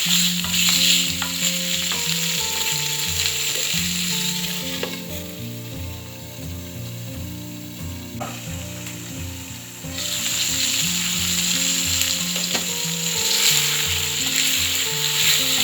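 Chicken livers frying in hot oil with onions, sizzling steadily. The sizzle fades about a third of the way in and comes back strongly about two-thirds in.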